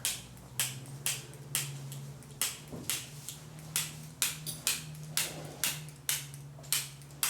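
Spring-loaded Activator adjusting instrument firing over and over on a horse's back, a sharp click about three times a second, over a low steady hum.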